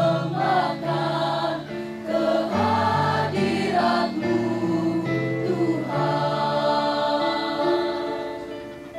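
A junior high school choir singing in harmony to electronic keyboard accompaniment. The song closes on a long held chord that fades out near the end.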